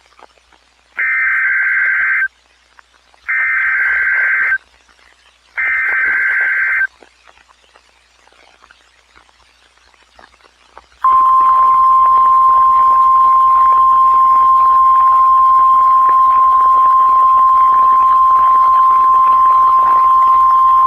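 NOAA Weather Radio test tones: three short bursts of SAME digital header data, a buzzy screech about a second long each, spaced about a second apart. After a pause comes the warning alert tone, a single steady pitch held for about ten seconds, that cuts off sharply.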